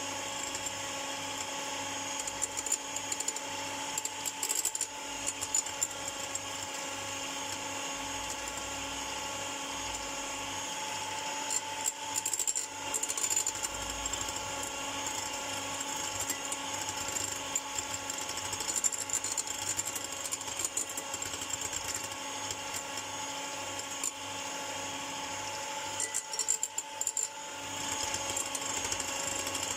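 Electric hand mixer running steadily with a motor whine, its beaters whipping egg whites into meringue in a glass bowl, with irregular clicks and rattles throughout. It briefly goes quieter near the end, then picks up again.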